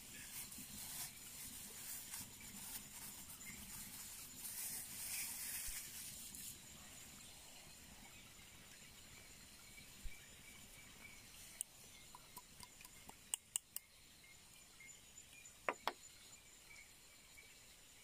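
A plastic bag crinkles as flour is squeezed out of it for the first six seconds or so. A few light taps follow as a stick works the flour on a dry leaf. Insects trill steadily in the background.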